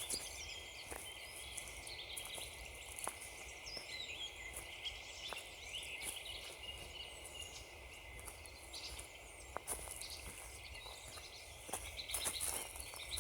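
Small woodland birds chirping and singing. Crunching footsteps on frozen ground come in as scattered clicks, thickening near the end.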